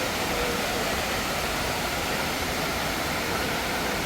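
Steady rushing noise with faint voices in the background.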